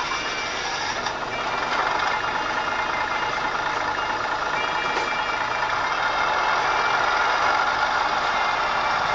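ESU LokSound decoder in an N-scale model rail car playing its engine sound through a tiny speaker: a steady engine drone with almost no bass, getting slightly louder about a second and a half in.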